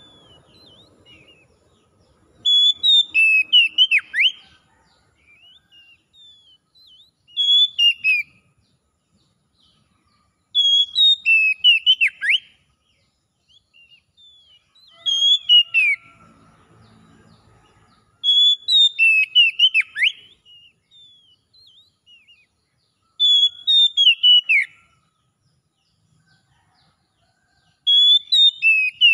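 Oriental magpie-robin singing loud, clear whistled phrases of quick notes, many sliding downward. About seven phrases come a few seconds apart, with faint short chirps between them.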